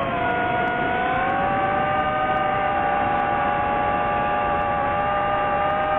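DJI FPV drone's motors and propellers whining in flight over a rushing hiss, the pitch dipping briefly about half a second in, then rising again and holding steady.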